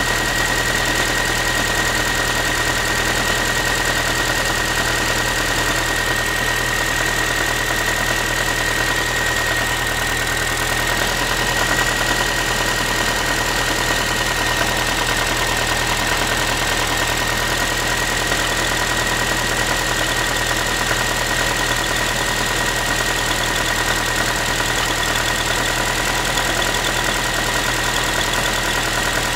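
Ford Focus 3's 1.6-litre 125 hp engine idling steadily after a cold start, with a steady high tone over it and a tinny, saucepan-like mechanical knock whose cause the owner does not know.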